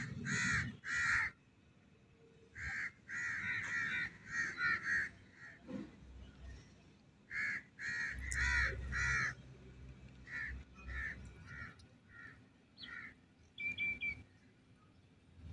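A bird calling over and over: short calls in runs of two to six, with pauses between runs, growing fainter in the last few seconds.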